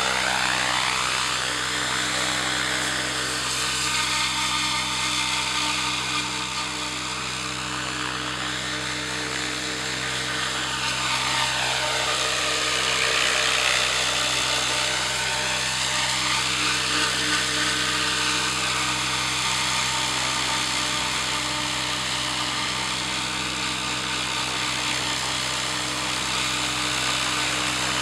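Radio-controlled model helicopter hovering and manoeuvring low: a steady high whirring whine of its motor and rotors, with a slow sweeping rise and fall in tone every few seconds as it moves about.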